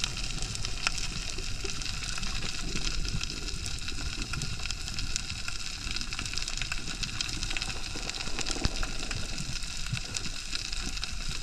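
Underwater reef sound: a constant dense crackle of tiny clicks, the snapping of shrimp on the reef, over a low rumble of moving water.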